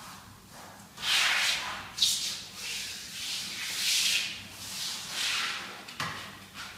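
Palms sliding and rubbing over a pasted strip of vinyl wallpaper on the wall, pushing it into a butt joint with the neighbouring strip. It comes as a series of about five swishing strokes, starting about a second in.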